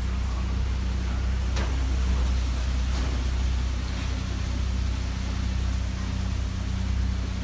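Heavy machinery running with a steady low hum, with a couple of faint sharp knocks about one and a half and three seconds in.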